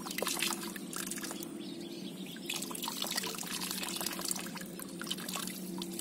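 Muddy water sloshing and splashing in a metal bowl as a hand gropes in it for a wriggling eel, in two spells of small splashes. A steady low hum runs underneath.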